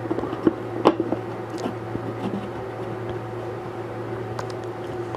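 Light wooden clicks and knocks as a glued bamboo panel is set onto a finger-jointed box and pressed into place, the sharpest two in the first second, a few fainter ones after. A steady low mechanical hum runs underneath.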